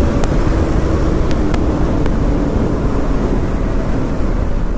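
Motorcycle at speed heard from the rider's seat: a KTM Duke 200's single-cylinder engine under heavy wind rush on the microphone, its note slowly sinking in pitch. A few sharp clicks in the first second and a half.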